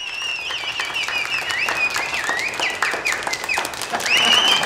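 Celebratory whistling: long high whistles that dip and swoop back up, several overlapping, over dense hand clapping.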